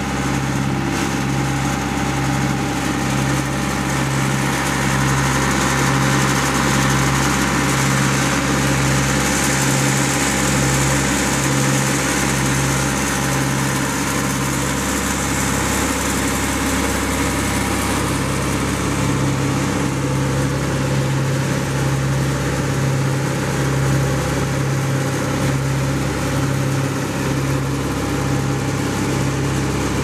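Gravely ProChip 395 wood chipper's engine running steadily at an even speed, with a slight regular throb.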